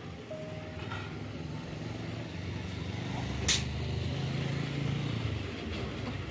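A heavy vehicle's engine running with a low steady hum, growing louder toward the middle and easing off near the end, with one sharp knock about three and a half seconds in.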